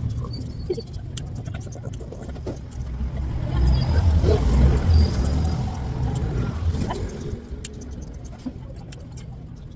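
Steel scissors snipping a dog's fur: runs of light, quick snips near the start and again near the end, over a low rumble that swells in the middle.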